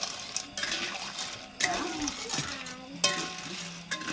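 Kitchen utensils clinking and knocking against pots and dishes: a few sharp strikes about a second apart over a low background murmur.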